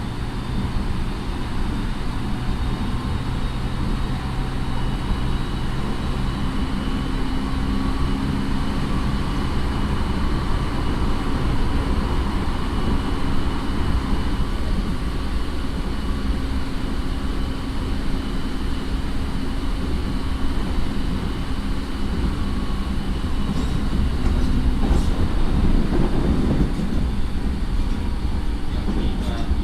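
JR 209 series electric train's motor car (Mitsubishi IGBT-VVVF, MT68 traction motors), heard from inside the car, running at a steady speed: a heavy wheel-and-rail rumble with steady motor and gear whines that hold one pitch. About 24 to 27 seconds in, a short run of clattering knocks rises over the rumble.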